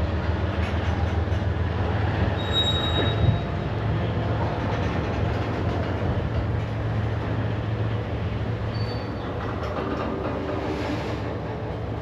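Freight train moving through a rail yard: a diesel locomotive engine runs with a steady low drone while the cars roll, and steel wheels squeal briefly, high-pitched, about two and a half seconds in and again near nine seconds. A single sharp knock comes just after the first squeal.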